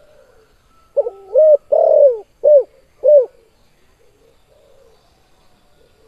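Spotted dove (tekukur) giving one cooing phrase about a second in: a two-part opening note and a longer coo, then two short 'kuk' notes.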